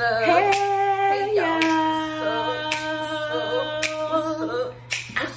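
A woman singing long held notes, stepping down to a lower note about a second and a half in and holding it for about three seconds, with sharp claps about once a second.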